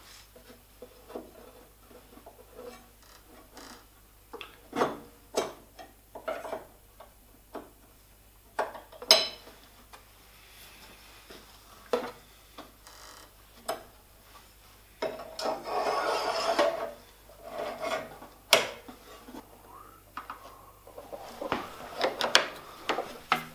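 Steel jointer blade and clamping bar being slid and seated into the cutterhead slot of an Elektra Beckum HC300 jointer/planer: scattered sharp metal clicks and a longer scraping rub about two-thirds through. Near the end a hex key scrapes and turns in the clamping screws.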